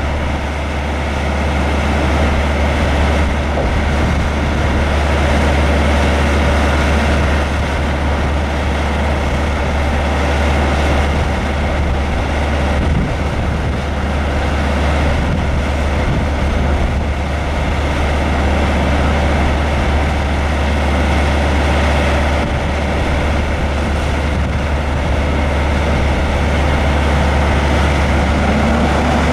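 Caterpillar 3406 inline-six diesel engine of a 1989 Ford L9000 vactor truck running with a steady, even low drone while the raised hydraulic dump body is lowered.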